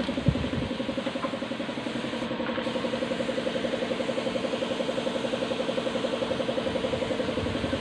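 A motor or engine running steadily with a fast, even pulse, plus one short knock near the start.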